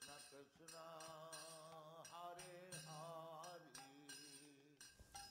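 Faint background music: a slow melody of held, wavering notes.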